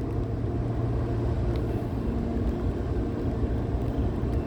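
Freight train with two diesel locomotives, a CN SD70M-2 and an SD40-2W, moving through a grade crossing. It makes a steady low engine drone, and a second, higher hum joins about halfway through.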